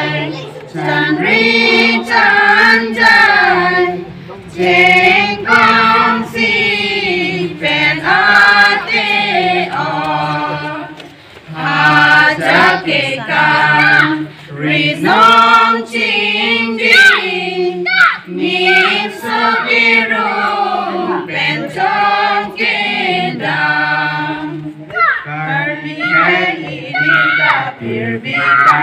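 A group of mainly women's voices singing a song together in Karbi, in long held phrases with brief pauses for breath, the clearest around 4, 11 and 18 seconds in.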